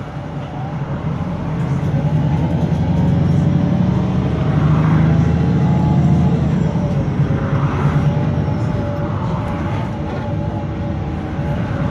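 VDL SB200 single-deck bus with a Wright Pulsar 2 body, running under way. Its engine pulls louder from about two seconds in and eases off after about eight, with a wavering groaning noise over it.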